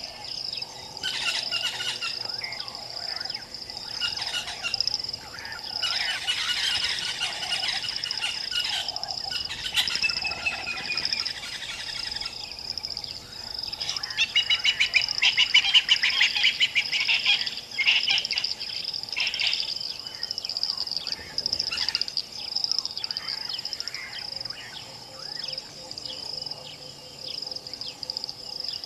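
Several wild birds calling at once, with chirps and rapid trills, over a steady high-pitched pulsing buzz. A burst of fast trilling about halfway through is the loudest part.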